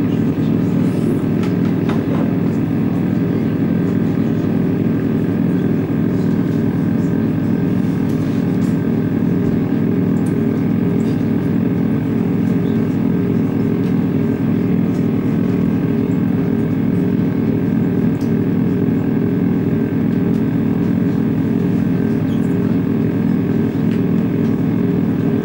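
Live ambient drone music built from loops: a dense, steady layer of sustained low tones that holds without a break, with a few faint crackles above it.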